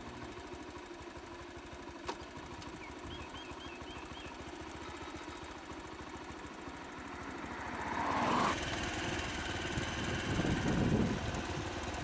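A vehicle engine idling steadily, with a run of five short high chirps about three seconds in. From about eight seconds a louder rushing noise rises, followed by uneven low rumbling.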